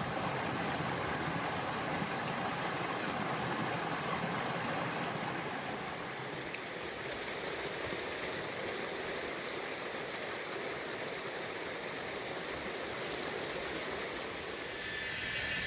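Mountain stream rushing and splashing over boulders, a steady noise; about six seconds in it becomes a little softer.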